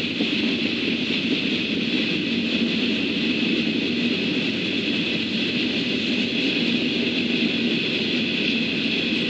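Freight train of loaded steel coil cars rolling past: a steady noise of wheels on rail that does not change in level.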